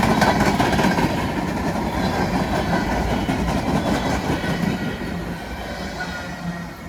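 Empty railcars of a freight train rolling past, wheels clattering over the rail joints. The sound dies away steadily, most sharply near the end.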